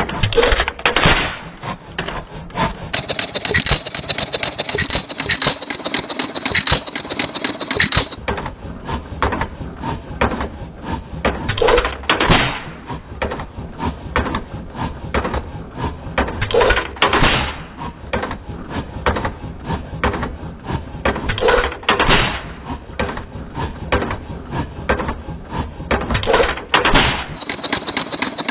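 Monarch single-cylinder hopper-cooled stationary engine running, a fast steady clatter of its valve gear and magneto igniter, with heavier beats about every five seconds.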